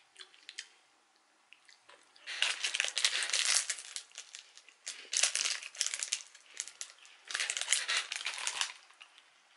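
Plastic snack wrapper being crinkled and handled in three bouts of crackling, each one to two seconds long.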